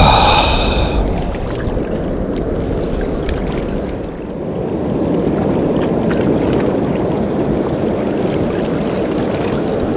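Steady rushing of water from the dam's spillway tailwaters, a loud even roar with no pauses. A brief high, ringing tone sounds right at the start.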